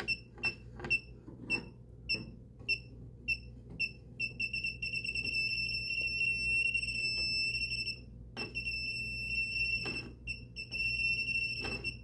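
Klein breaker finder receiver beeping as it is passed over the breakers: separate high beeps about twice a second at first, then coming so fast they merge into a near-continuous beep from about four seconds in, with a short break a little after halfway. The quickening beep shows the receiver closing in on the breaker that carries the transmitter's signal. A few light knocks near the end.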